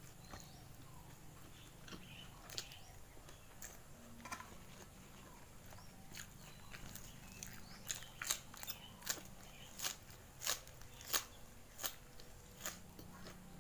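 Close-up eating sounds: a few soft mouth clicks, then from about eight seconds in a run of loud, sharp crunches, roughly one or two a second, as a crunchy mouthful is chewed.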